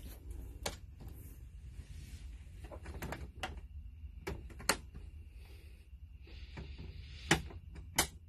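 Switches on a school bus dashboard clicking: about seven sharp clicks at irregular intervals, the two loudest near the end, over a steady low rumble.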